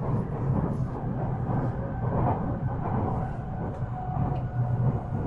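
Onboard running sound of a JR West 223 series 5000 sub-series electric train: a steady low rumble of wheels on rails, with faint steady tones joining about two seconds in.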